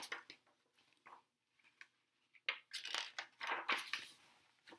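Pages of a hardcover picture book being turned and handled: a few seconds of paper rustling and swishing in the middle, after a soft click or two.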